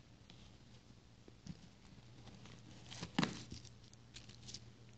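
Faint rustling and light clicks of a phone's cardboard retail box and its packed accessories being handled, with one sharper knock about three seconds in, over a low steady hum.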